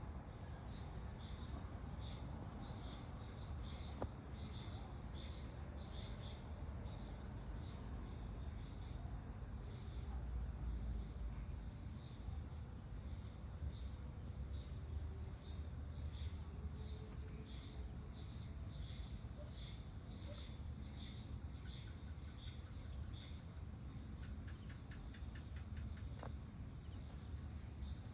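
Evening chorus of crickets and other insects: a steady high-pitched trilling with a pulsing chirp repeating about twice a second, over a low background rumble.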